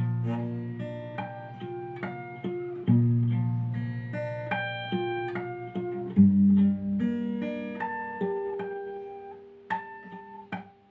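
Capoed acoustic guitar played fingerstyle: low bass notes struck three times, with clear bell-like artificial harmonics plucked above them, the last notes about ten seconds in.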